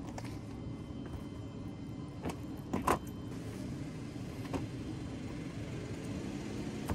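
A few short knocks and bumps as a rolling suitcase is lifted into an SUV's cargo area, the loudest about three seconds in, over a steady low hum.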